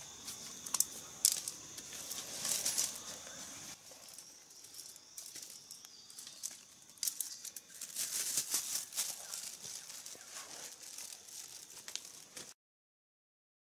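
Scattered clicks, rustles and crackles of a small metal squirrel trap being handled on a tree trunk, and of footsteps through dry leaf litter, over a steady high hiss. The sound cuts off suddenly about a second before the end.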